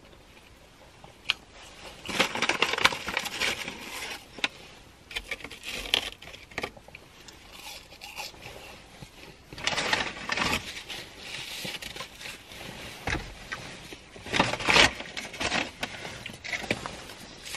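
Close-miked eating of fast food: chewing and crunching in irregular bursts with small clicks, the loudest stretches about two seconds in, around ten seconds and near fifteen seconds.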